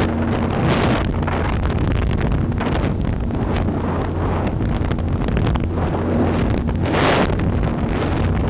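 Powerboat running at speed, its engines droning steadily under heavy wind buffeting on the microphone. Louder rushes of wind and spray surge about a second in and again near the end.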